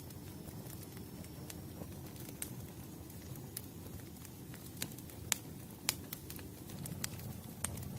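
Wood fire burning: a steady low rumble of flames with scattered sharp crackles and pops from the burning logs, the loudest a little past the middle.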